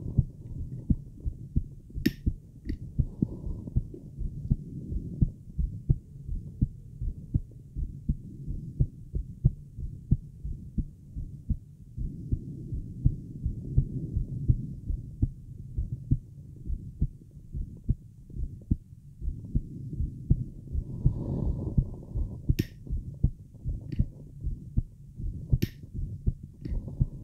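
A woman's fast heartbeat heard through a Littmann stethoscope with a microphone on it: a steady run of low, muffled thumps. A few sharp clicks come about two seconds in and again near the end.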